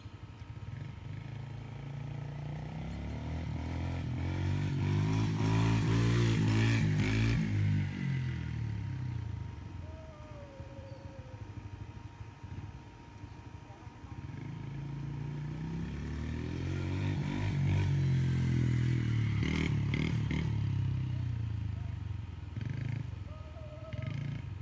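Child-size dirt bike engine running, twice growing louder and higher in pitch, then fading and dropping again, as the bike comes near and moves away; the two swells are about twelve seconds apart.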